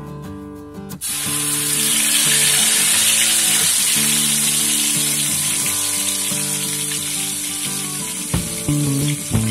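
Blended chili paste hitting hot oil in a wok, breaking into a loud, steady sizzle about a second in as it fries. A couple of light knocks come near the end.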